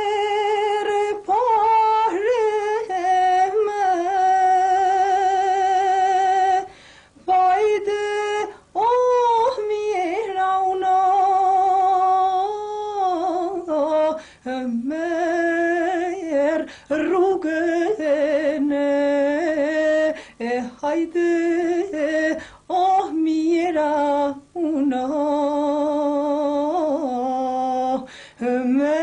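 A woman singing a slow song in a high voice, holding long notes that waver and turn, with short breaks for breath.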